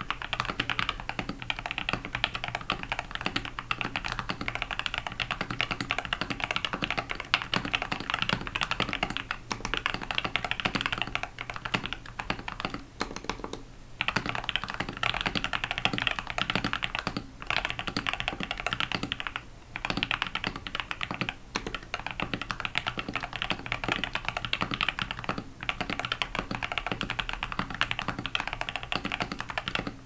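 Continuous fast typing on a GK61 60% mechanical keyboard fitted with lubed Gateron Optical Red linear switches, o-ring mounted and dampened with polyfill: dense keystroke clacks with a few short pauses. Its stock stabilizers give some rattle on the long keys.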